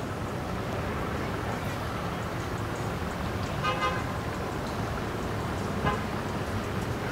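A short single horn toot about three and a half seconds in, over a steady low rumble.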